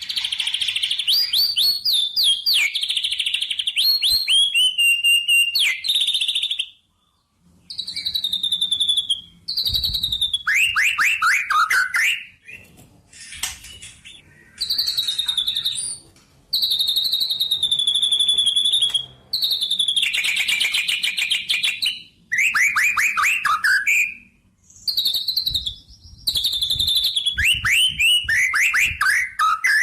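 A songbird singing loud, fast phrases of chirps and trills, with quick sweeps falling from high to lower pitch, broken by short pauses between phrases.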